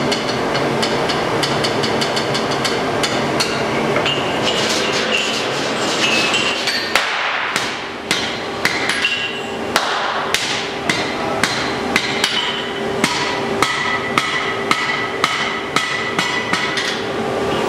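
Blacksmith's hand hammer striking a white-hot chain link on an anvil, ringing blows that settle into a regular beat of about two a second some eight seconds in. A steady low hum runs underneath.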